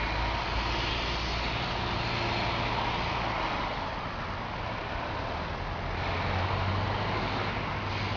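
Norfolk Southern diesel locomotive rumbling as it approaches along the tracks: a steady low engine drone with a hum underneath, swelling a little near the end.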